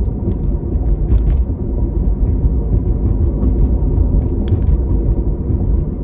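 Steady low rumble of a car being driven, heard from inside the cabin: road and engine noise, with a couple of faint clicks.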